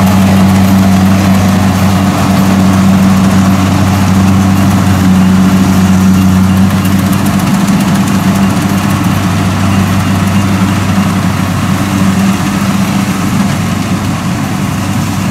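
Kubota combine harvester's diesel engine running steadily with a deep hum while it cuts and threshes rice. It grows a little fainter near the end as the machine moves away.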